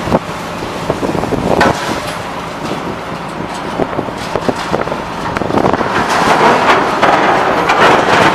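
Scrap metal shredder plant and its material handler running: steady heavy machinery noise broken by frequent metallic clanks and crunches of scrap. It grows louder about halfway through.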